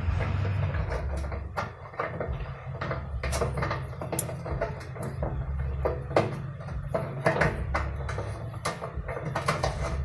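Scattered, irregular clicks and small metallic taps from hands and tools working the motorcycle fuel valve onto its tank, over a steady low hum.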